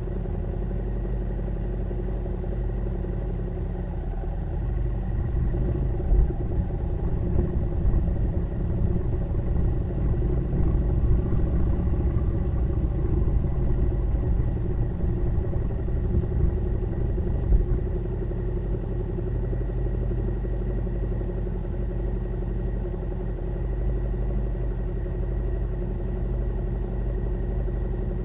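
Vehicle engine running steadily under way, a continuous low rumble with road noise, swelling a little in the middle.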